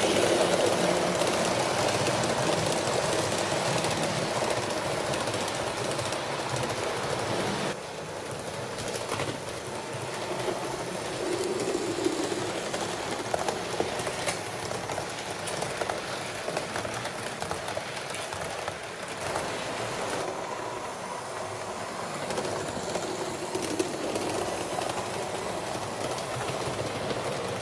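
A train rolling along the track: a steady running rumble with occasional wheel clicks. The sound changes abruptly about eight seconds in and again around twenty seconds in.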